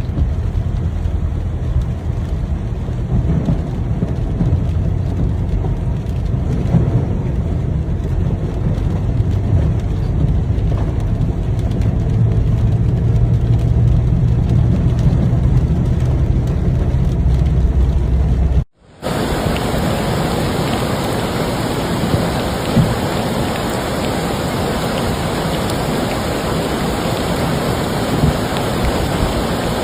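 Heavy rain and rushing floodwater as a steady noise with no distinct events. It is a low rumble for the first two-thirds. After an abrupt cut it becomes a brighter, even rush of water.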